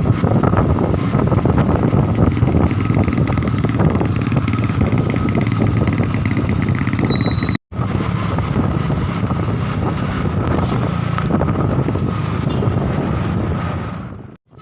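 Road vehicle running with a steady engine and road rumble, cutting out to silence for a moment about halfway through and again near the end.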